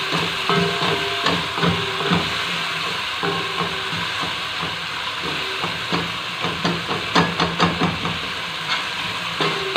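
Beef with green pepper and coriander sizzling in a nonstick wok while a wooden spoon stirs and scrapes it, with quick knocks of the spoon against the pan, most frequent about seven to eight seconds in.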